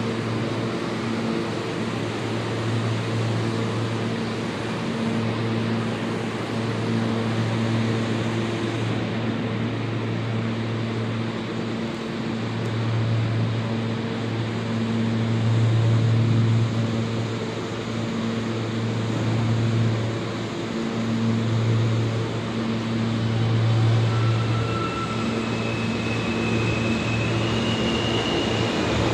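Steady low machine hum in a subway station, its deep tone slowly swelling and fading every few seconds. Faint high squeals come in near the end.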